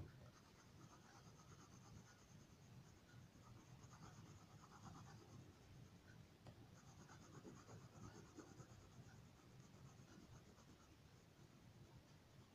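Faint, irregular scratching of a crayon rubbing on paper as a drawing is coloured in.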